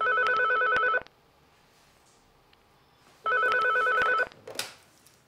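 Electronic office desk telephone ringing twice, each ring a fast warbling trill about a second long, the two about three seconds apart. A short clatter follows the second ring as the handset is lifted.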